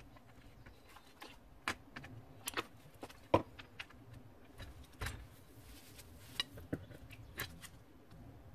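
Irregular light clicks and taps of small metal pendant pieces being pushed into place by hand on aluminium foil in a pan, the sharpest tap about three and a half seconds in.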